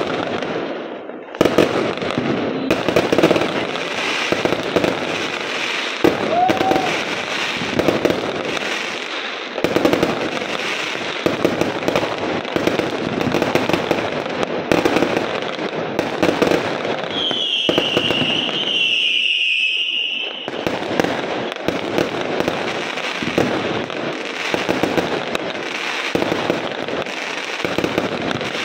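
Fireworks going off without a break: dense, rapid bangs and crackling. About two-thirds of the way through, a high, wavering whistle sounds over them for about three seconds.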